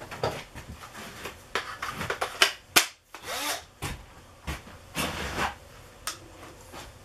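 Wooden jig parts and hand tools being handled on a workbench: a string of short knocks and clicks with a few brief rubbing scrapes of wood.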